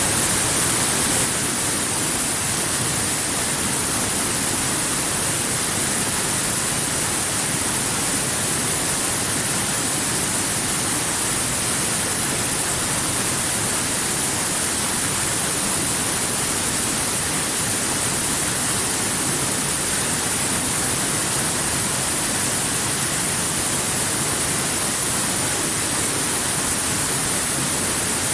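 Waterfall rushing steadily: a dense, unbroken roar of falling water with a strong hiss.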